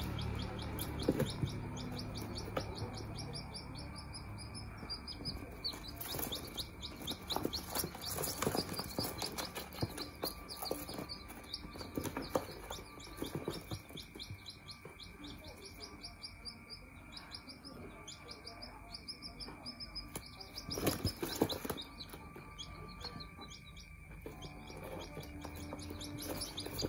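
Young ringneck pheasant and modern game bantam chicks peeping continuously, rapid high peeps several a second, in a cardboard box. Cardboard rustles and knocks as a hand handles them, louder about three-quarters of the way through.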